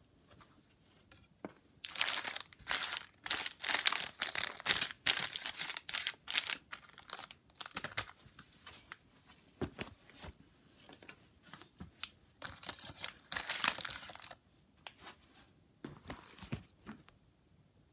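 Plastic candy-packet wrappers crinkling and rustling as they are handled, in a busy stretch of crackles starting about two seconds in and a second, shorter one about two-thirds through.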